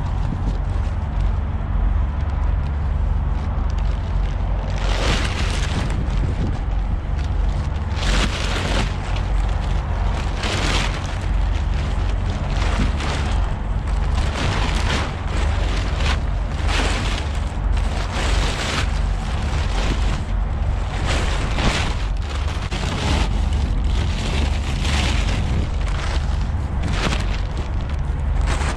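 Blue plastic tarp crinkling and rustling as it is handled and folded, in irregular bursts from about five seconds in, over a steady low rumble.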